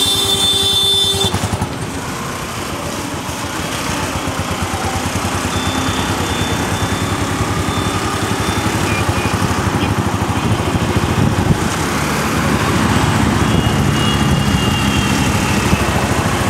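Motor scooter engines running in road traffic, with road and wind noise growing slowly louder. A vehicle horn sounds for about a second at the start.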